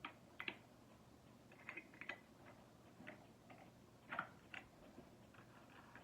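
Scattered faint clicks and light knocks of parts being handled as the guard is taken off a cordless angle grinder, a few close together about two seconds in and a louder pair a little past four seconds.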